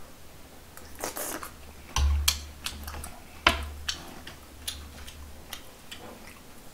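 Close-miked eating and table-handling sounds: mouth noises and utensil and cabbage-leaf handling, heard as a scatter of sharp clicks and knocks. The loudest is a bump about two seconds in, then a sharp click about a second and a half later.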